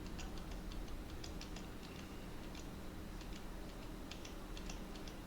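Light, irregular clicking of a computer keyboard and mouse as shortcuts and selections are made, over a low steady hum.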